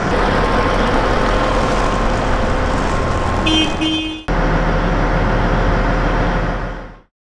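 A New Holland FX58 forage harvester's large Caterpillar diesel engine running steadily with a deep hum. A little over three seconds in, its horn gives two short toots. The sound fades out near the end.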